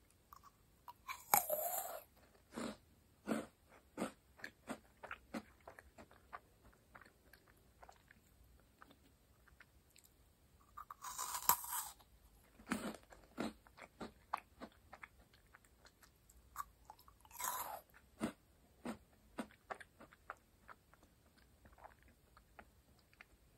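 Crisp meringue cookies being bitten and chewed: three loud crunching bites, about a second in, near the middle and a little later, each followed by a run of sharp, dry crunches that thin out as the meringue is chewed down.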